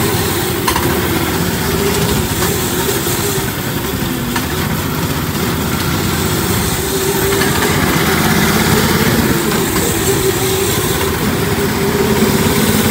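Off-road buggy engine running steadily, with a held engine note, growing a little louder about halfway through.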